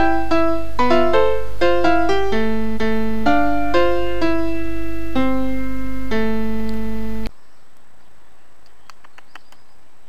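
Background keyboard music: a simple melody of single piano-like notes over a steady low hum, cutting off suddenly about seven seconds in. After that, a quieter background with a few faint clicks.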